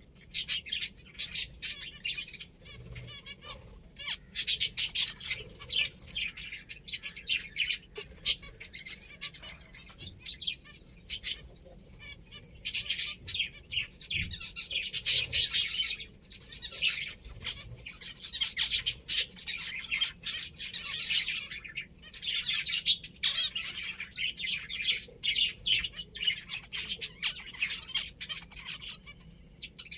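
Pet finches chirping, many short high calls overlapping in quick succession with only brief lulls.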